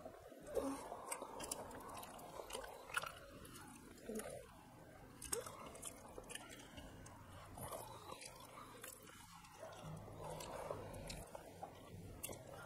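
Close-up chewing of mouthfuls of rice, with scattered wet clicks and smacks, and fingers mixing rice on steel plates.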